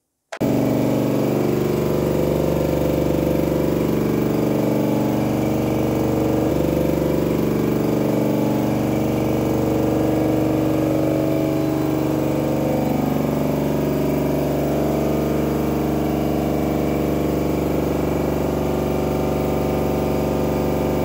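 Twin-head electric air compressor of a Pulse air-leakage test kit switched on, starting abruptly and running with a steady loud hum as it pumps the test tank up toward 10 bar.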